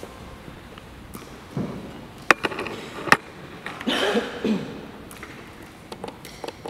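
Quiet room after singing ends: a few brief murmured voices and two sharp clicks about a second apart.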